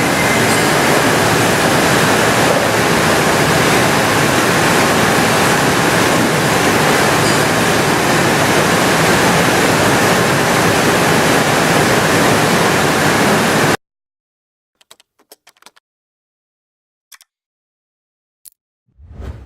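Steady rushing, water-like noise of the Okuma LFS10 M lathe running with coolant spraying, cutting off abruptly about fourteen seconds in. After that come a few faint clicks and a short low whoosh at the very end.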